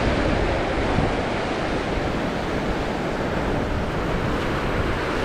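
Small sea waves breaking and washing up a sandy beach in a steady wash of surf, with wind buffeting the microphone.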